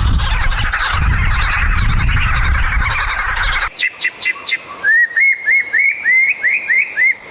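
Birds calling. First a dense chatter of many birds over a low rumble, then after a sudden change a single bird repeating a short up-and-down whistled note about three times a second.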